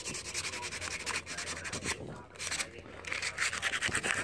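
Sandpaper rubbed by hand in rapid back-and-forth strokes over a scooter handlebar, smoothing the surface, with a few brief pauses about halfway through.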